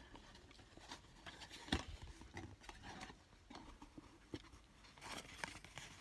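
Faint rustling and light crinkling of thick patterned paper being handled and bent by hand, with a sharp tick a little under two seconds in.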